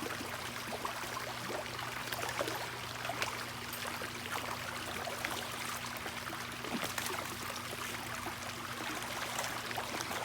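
Water running and trickling steadily in a backyard trout pond's stream and waterfalls, with scattered small ticks and a faint low hum underneath.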